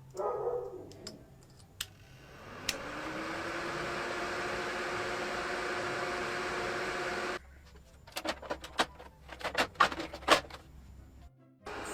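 A small motor spins up with a rising whine, runs at a steady pitch for about five seconds, then cuts off suddenly; a run of sharp clicks follows.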